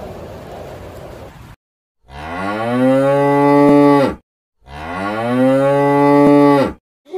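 Domestic cow mooing twice, each moo about two seconds long, rising in pitch at the start and then held. The two calls are identical, a repeated recording. Before them a steady rushing noise cuts off abruptly.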